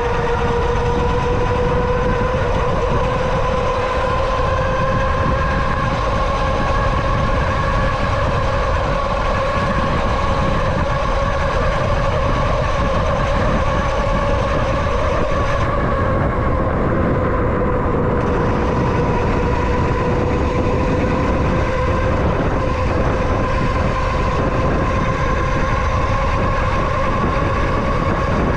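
A vehicle's motor whining at a steady, slowly wavering pitch over a constant heavy rumble and rushing noise while it moves along.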